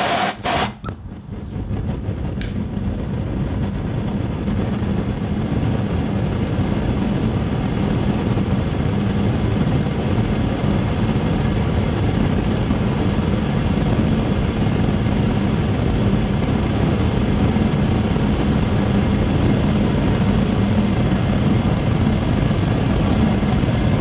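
Homemade Frosty T-style gas burner firing with a steady roar, sputtering briefly in the first second after lighting, then growing louder over the next few seconds as the flame builds.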